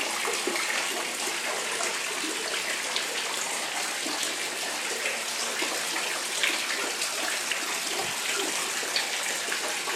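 Water pouring and splashing steadily, the flow of a flood running into an apartment room.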